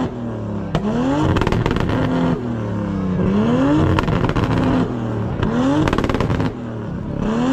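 Nissan Skyline R34's straight-six engine revved hard several times, the pitch rising and falling with each blip, with pops and crackles from the exhaust as the revs drop. The car is backfiring flames out of the exhaust to light a bonfire.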